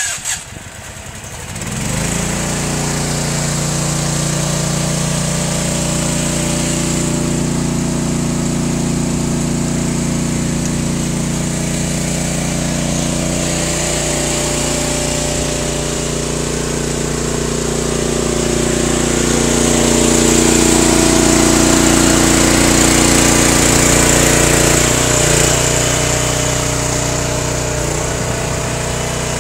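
Small engine of a 20-ton hydraulic firewood processor starting about two seconds in, then running steadily. Its note shifts about halfway through and grows louder for several seconds later on.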